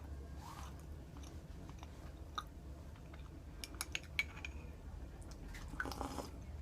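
A person chewing food close to the microphone, with a few small clicks around the middle.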